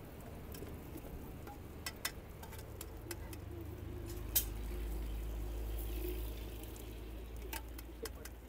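Parathas frying on a large iron tawa over a wood fire: faint sizzling with a few sharp clicks and clinks from the metal spatula on the griddle, over a low steady hum that grows louder about four seconds in.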